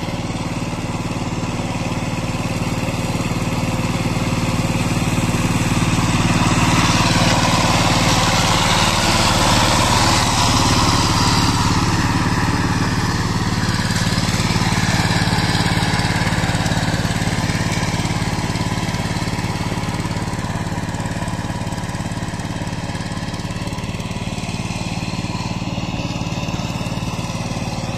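Power tiller's single-cylinder diesel engine running steadily under load as its rotavator churns through flooded paddy mud. It grows louder for several seconds in the middle as the tiller comes close, then eases off as it moves away.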